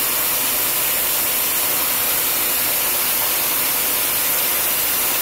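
Vertical milling machine running, its end mill taking a power-fed cut: a steady, even hiss with a faint hum under it.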